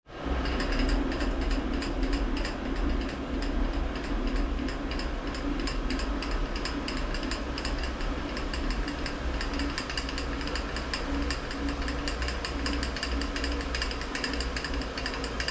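Brown & Sharpe milling machine running: a steady motor hum with a fine, continuous clatter of its gear drive.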